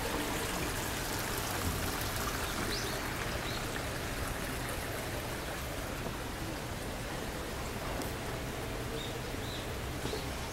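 Steady rushing and trickling of a small garden stream flowing over rocks.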